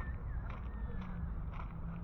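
Footsteps of someone walking at a steady pace, about two steps a second, each step a short crunch, over a steady low outdoor rumble.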